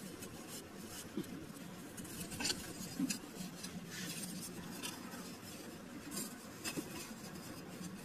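Short sections of PVC pipe being set down and shifted on sandy soil: soft scraping and rubbing with a few light knocks.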